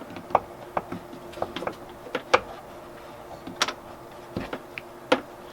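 Irregular light clicks and metallic clinks of a gas lift strut being handled and fitted onto the liftgate's ball studs, with a sharper clink about two seconds in and another past three and a half seconds.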